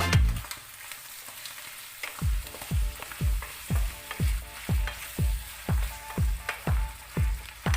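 Food sizzling and frying in a pan, a steady hiss. About two seconds in, a dance-music beat comes back in with a regular kick drum about twice a second.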